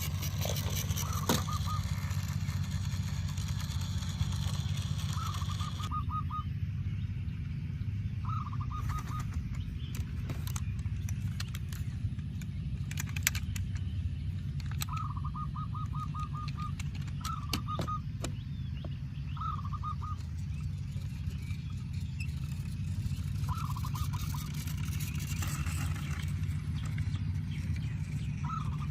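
A bird calling in short, rapid series of notes, about eight times every few seconds, over a steady low hum.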